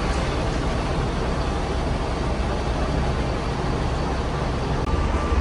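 Steady low rumble of idling diesel bus engines and traffic, with an even hiss over it.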